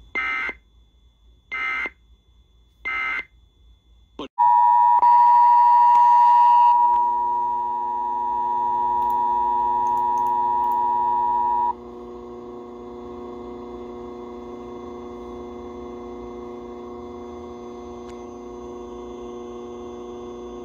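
Emergency Alert System end-of-message data bursts, three short bursts about a second and a half apart. A click follows, then the loud two-tone EAS attention signal holds steady for about seven seconds and cuts off suddenly, leaving a steady mains hum.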